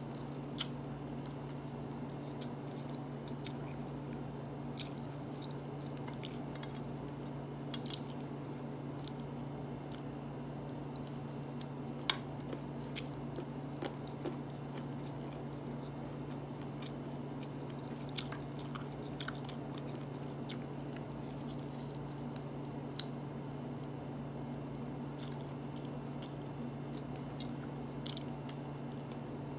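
A person chewing mouthfuls of lamb and rice kabsa eaten by hand, with scattered small sharp clicks and smacks. A steady low hum runs underneath.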